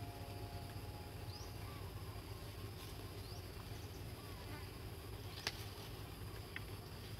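A flying insect buzzing steadily and faintly, with a few short high chirps and one sharp click about five and a half seconds in.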